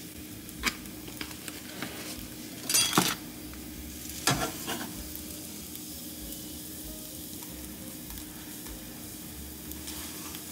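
Quesadilla sizzling steadily in a nonstick skillet over a gas flame, with a few scrapes and knocks of a spatula against the pan as the tortilla is folded over. The loudest clatter comes about three seconds in.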